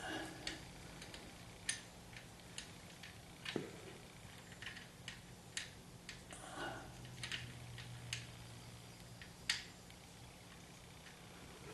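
Scattered light clicks and taps of small parts and tools being handled while fitting a speedometer cable into a car transmission, over a faint steady hum.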